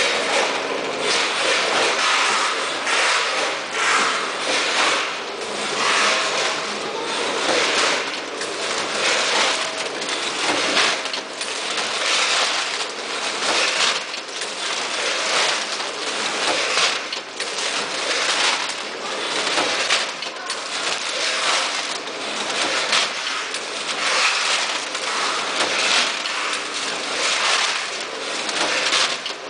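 Automatic vertical packing machine with bucket elevator and multihead weigher running: a loud, continuous, irregular clatter and rattle of mechanical parts.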